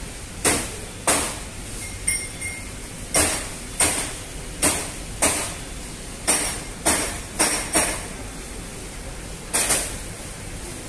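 About a dozen sharp knocks at uneven intervals, mostly half a second to a second apart, over a steady hiss. A brief faint high ping sounds about two seconds in.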